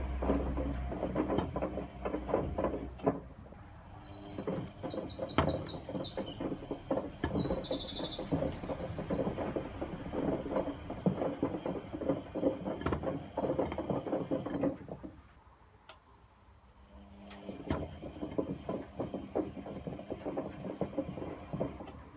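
Front-loading washing machine drum tumbling a load with twenty bars of soap, which knock and clatter against the drum. About two-thirds of the way through, the drum stops for a couple of seconds, then turns again. A bird chirps repeatedly in the first half.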